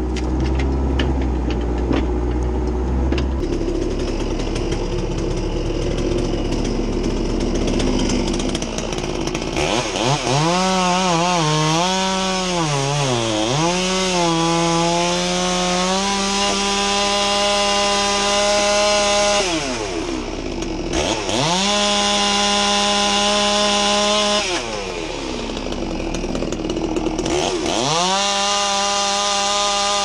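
Chainsaw revved up to full throttle about ten seconds in, its pitch wavering, then held high and steady as it cuts. Twice the revs drop away and climb back to full speed. Before that, a lower engine sound with a deep hum that stops a few seconds in.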